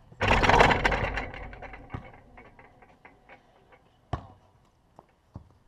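Basketball dunked through a driveway hoop: the rim and backboard take the hit and rattle loudly, dying away over about a second and a half. A few sharp knocks follow, the loudest about four seconds in.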